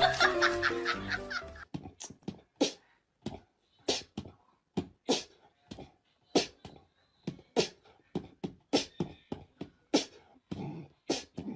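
Music with held notes that stops about a second and a half in, followed by a long run of short, sharp clicks or taps at irregular spacing, a few a second.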